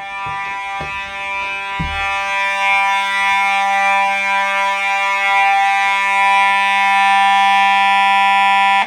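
Simplex 4903-9219 fire alarm horn, a Faraday-built unit, sounding one continuous steady buzzing tone. It is very loud and cuts off abruptly near the end.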